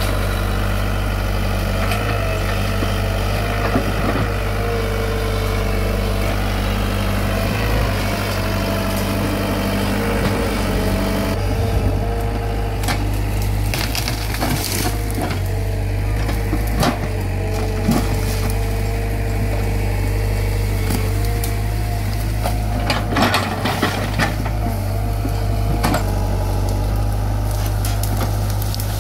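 Komatsu PC75 hydraulic excavator clearing brush: its diesel engine runs steadily under load, and the hydraulic whine rises and falls as the arm works. Over this, branches and saplings crush and snap, with sharp wood cracks several times in the second half.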